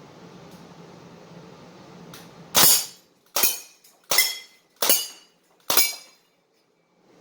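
Crosman CO2 BB rifle firing five single shots, a little under a second apart, each a sharp pop with a short ring after it.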